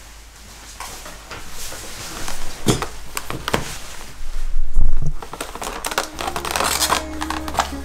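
A paperboard Krispy Kreme doughnut box handled on a wooden table: knocks as it is set down and moved, the loudest a thump about five seconds in, then paper rustling as the box is opened. Soft music comes in about six seconds in.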